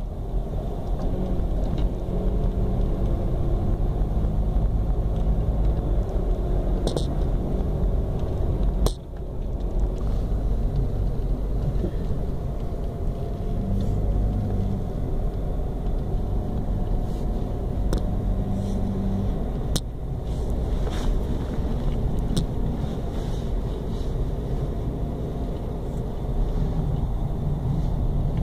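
A car driving, with steady engine and road rumble and a few short knocks, one about nine seconds in.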